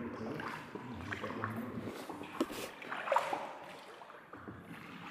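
Paddled tour boat gliding along an underground river inside a limestone cave: soft water splashes and scattered small knocks.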